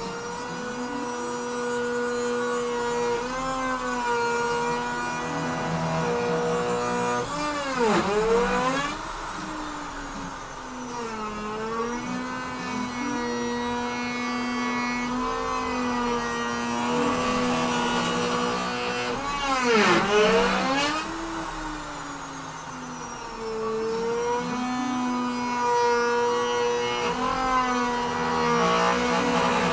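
A LongMill CNC router with a Bauer router as its spindle, running and cutting egg hollows into a wooden board: a steady motor whine whose tones shift in pitch as the machine moves, twice dipping and climbing back up, about 8 and 20 seconds in.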